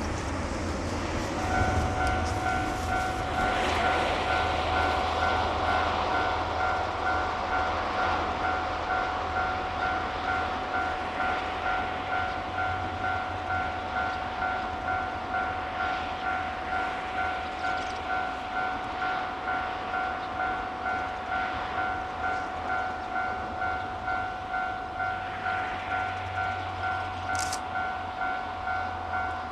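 Train running past, with a regular beat about one and a half times a second. A steady high tone starts about a second and a half in and holds throughout.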